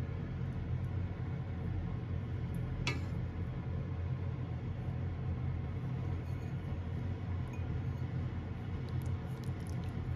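Wooden chopsticks clink once, sharply, against the dishes about three seconds in, with a few faint ticks near the end, over a steady low hum.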